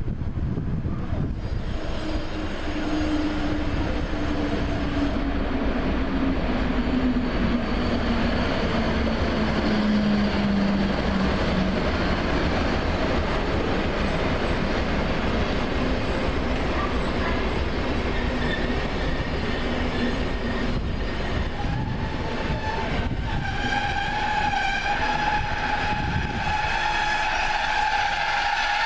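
Train passing at close range: a continuous loud rumble of wheels on rails, with a slowly falling tone in the first half and a steady high-pitched tone that comes in about two-thirds of the way through and holds.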